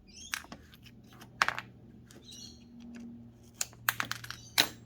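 A small hand tool clicking and scraping in irregular strokes against the end of a motorcycle oil sensor, picking at the hardened potting glue inside it. A faint steady low hum runs underneath.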